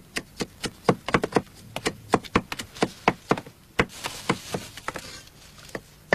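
Kitchen knife chopping on a wooden cutting board: a run of sharp strokes, some quick and uneven, with a brief hiss about four seconds in.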